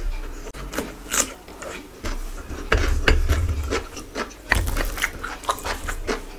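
Fingers mixing and squishing rice on a plate close to the microphone, mixed with eating sounds. It comes as irregular short crackles and rubs.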